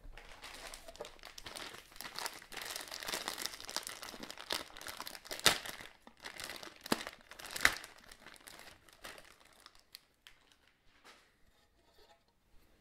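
Thin plastic kit bag crinkling and rustling as it is handled and pulled off a moulded plastic RC car chassis tub, with two louder sharp snaps about five and a half and seven and a half seconds in. The crinkling dies away over the last few seconds.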